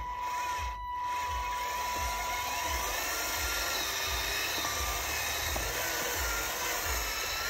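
Small electric motors and gearbox of a toy RC tractor whirring steadily as it strains to pull a trolley weighed down by a person sitting on it. A steady high tone sounds alongside and stops about three seconds in.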